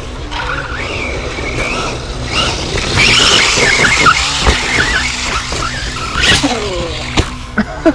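Axial Ryft RBX10 1/10-scale electric RC rock bouncer with a Castle Copperhead 10 brushless motor, driving over rough ground. The motor whines up and down in pitch with the throttle over the scrabble of the tyres and drivetrain, and the whine falls away about six and a half seconds in.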